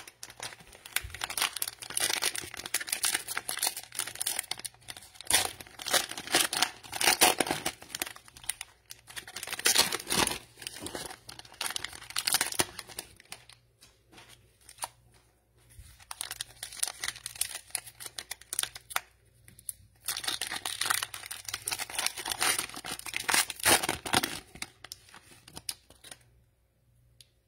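Cellophane trading-card pack wrappers being torn open and crinkled by hand: a dense crackling in two long stretches with a lull about halfway.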